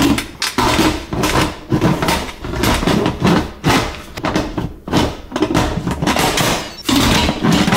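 The plastic lid of an Instant Pot electric pressure cooker being set on the pot's rim and twisted back and forth, clattering and clicking again and again as it fails to seat and lock.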